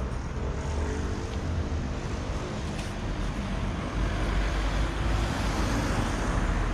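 City street traffic: a steady rumble of passing cars, a little louder from about four seconds in.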